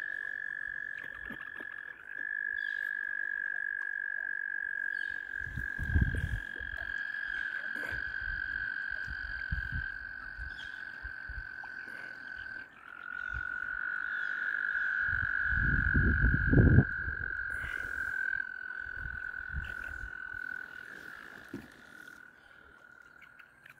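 Breeding chorus of mating frogs: long, steady, high trills running on one after another, with a fainter trill above them and the pitch dropping slightly about thirteen seconds in. Two low rumbles break in, around six seconds in and, louder, around sixteen seconds in.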